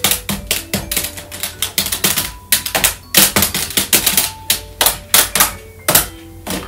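Keys of a children's toy laptop being pressed rapidly and irregularly: a stream of plastic key clicks, several a second, with short electronic beep tones set off by the presses.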